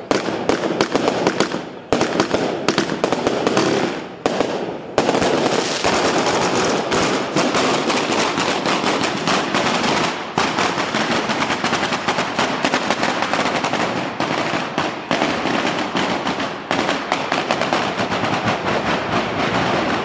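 Firecrackers exploding: a few seconds of separate bangs, then from about five seconds in a dense, unbroken rattle of rapid bangs from a traca, a Spanish chain of firecrackers fired in sequence.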